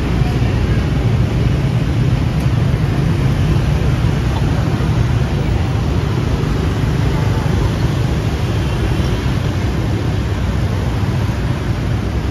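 Steady city street traffic noise, an even rumbling hum with no single vehicle standing out.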